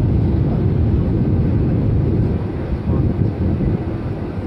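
Cabin noise of a Wizz Air Airbus A320-family airliner on approach, heard from a window seat beside the wing engine: a steady low rumble of jet engine and rushing air, easing slightly in level about halfway through.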